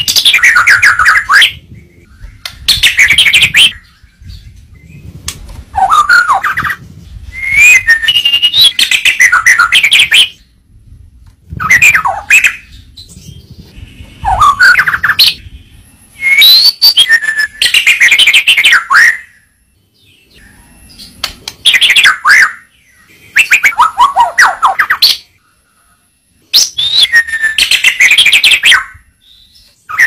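White-rumped shama (murai batu) singing loudly in about ten varied phrases of one to three seconds each, separated by short pauses. Many phrases have quick sweeping and falling whistled notes.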